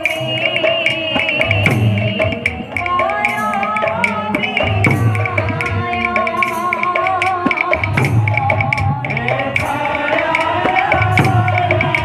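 Devotional kirtan music: singing carried over a melody line with steady hand-drum beats and sharp rhythmic percussion strikes.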